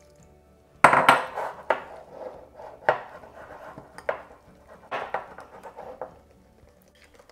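Small metal wire whisk beating a thick gram-flour batter in a ceramic bowl, its wires clattering and scraping against the bowl in irregular strokes. The strokes begin about a second in and stop near the end.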